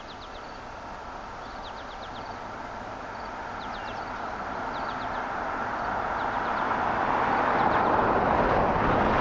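A broad rushing noise swells steadily, loudest near the end, while songbirds chirp in short runs of quick falling notes during the first half.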